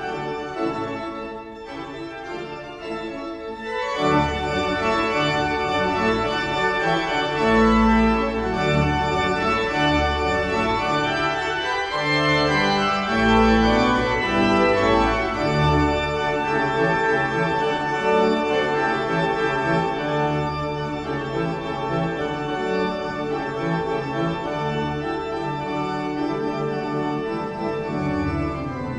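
Organ postlude: sustained chords over deep bass notes, growing fuller and louder about four seconds in.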